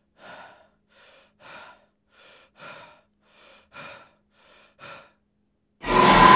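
A person breathing heavily and quickly, about two breaths a second, alternating louder and softer. Near the end a loud, sudden horror-film stinger hits, leaving a held ringing tone.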